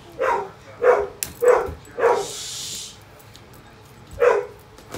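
A dog barking: four quick barks a little over half a second apart, then a single bark about four seconds in.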